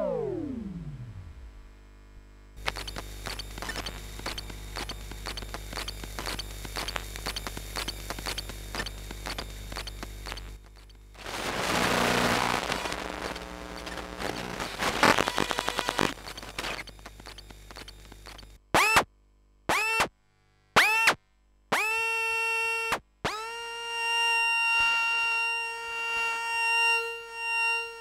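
Raw electromagnetic interference from consumer electronics, picked up by an induction-coil electromagnetic pickup: a cluster of tones gliding downward, then a low hum with dense, regular buzzy ticking, and a loud hissy, crackling burst. Near the end come four short tones separated by silence, each swooping up as it starts, then a held electronic tone with overtones that wavers in loudness.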